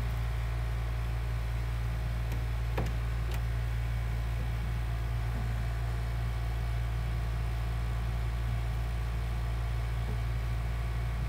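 Steady low hum with a faint hiss over it, and a few faint clicks about three seconds in.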